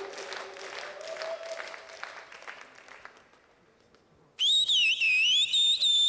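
Music and applause die away. About four seconds in, a woman begins loud, high whistling: quick swoops up and down, then one held note.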